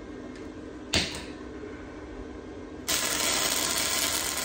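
A single sharp knock, then about three seconds in a wire-feed welder's arc strikes and crackles steadily as steel frame tubing is welded.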